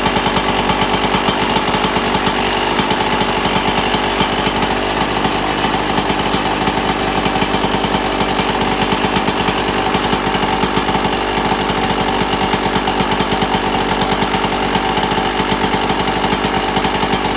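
1998 Yamaha YZ125 two-stroke engine running steadily, still on choke after a freezing cold start. It has a diesel-like clatter, which the owner suspects is a bad main bearing.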